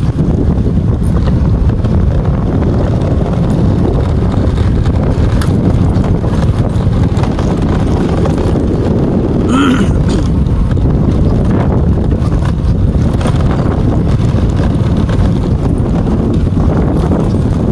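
Wind buffeting the microphone over a steady low rumble from a moving vehicle, with a brief pitched chirp about ten seconds in.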